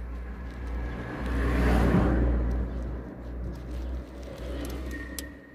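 A motor vehicle running, with a low steady rumble that swells about two seconds in and then eases off, like a car passing.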